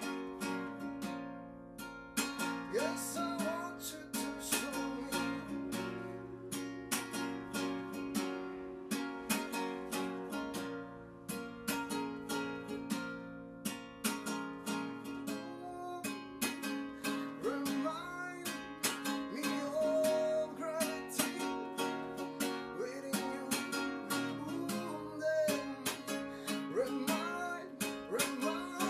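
Acoustic guitar played live, strummed and picked in an instrumental passage of a song, with many quick string attacks throughout.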